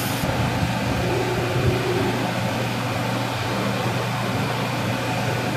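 CNC wire-cut EDM machine running, a steady mechanical hum with a constant low drone under an even hiss.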